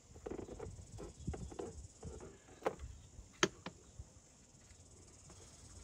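Handling noise from fitting a fountain pump and its hose in a black plastic tub: irregular light knocks and rustles of hose and plastic, with two sharper clicks about halfway through. A steady high-pitched buzz runs behind.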